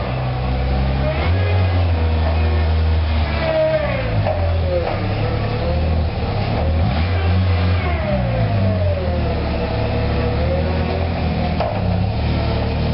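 Bendi articulated forklift running and driving with a load: a steady low hum that steps up and down, with a whine gliding up and down in pitch.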